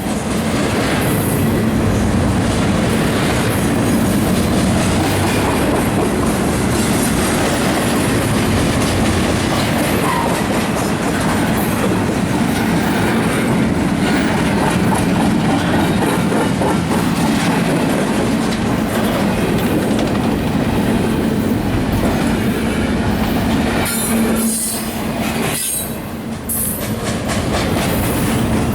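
CSX freight train rolling past at close range, its railcars and wheels making a loud, steady rolling noise that dips briefly near the end.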